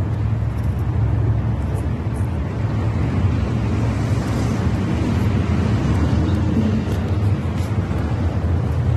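A steady low rumble of a running motor, unbroken throughout, with a few faint clicks above it.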